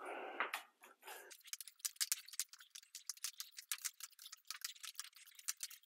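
Paint roller on an extension pole rolling through wet metallic epoxy, making a rapid, irregular crackle of small sharp clicks. A short rushing noise comes first, in about the first second.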